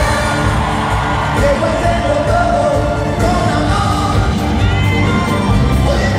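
Live band music with singing, heard from among the audience in a large arena.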